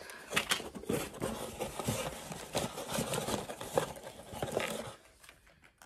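Cardboard box and plastic lure packaging rustling and scraping as items are handled and pulled out, with many small clicks; it stops about five seconds in.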